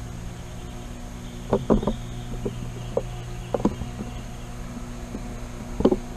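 Quiet outdoor background with a steady low hum and a few soft, irregular thumps.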